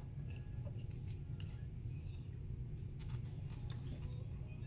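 Metal multimeter probe tips clicking and scraping against the LED chips and aluminium strips of an LED lamp, a few light clicks scattered through, over a steady low hum.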